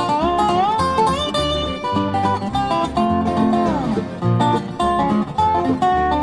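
Acoustic bluegrass band playing an instrumental break: a resonator guitar (Dobro) lead sliding between notes over acoustic guitar and banjo, with a bass line underneath.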